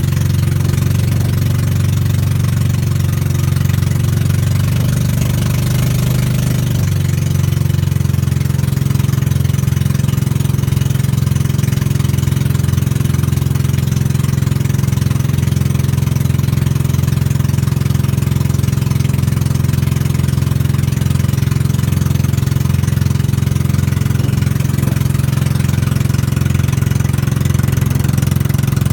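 Boat engine running steadily under way, a low, even drone whose note wavers briefly about five to seven seconds in.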